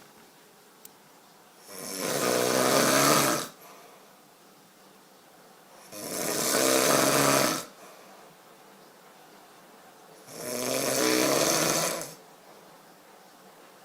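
A person snoring: three loud, rattling snores about four seconds apart, each lasting under two seconds, with quiet breathing between them.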